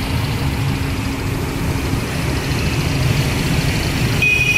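Steady low engine rumble, with a short high-pitched tone starting near the end.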